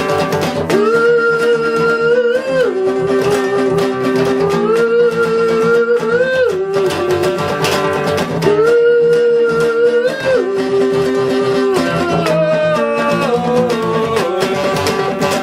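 Acoustic guitar strummed steadily, with a melody of long held notes, each about two seconds and bending at the end, carried over the strumming.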